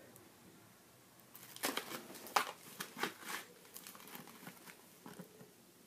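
Plastic-wrapped cardboard box of hookah charcoal being handled and turned over in the hand: a run of crinkling and rustling with a few sharper clicks, starting about a second and a half in.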